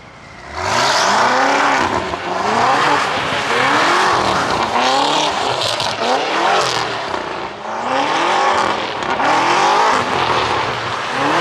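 BMW M5 F90's twin-turbo V8, fitted with an aftermarket titanium exhaust, revving up and dropping back about once a second while its rear tyres spin and skid on wet asphalt in a drift. It starts about half a second in. The car is held in first gear throughout.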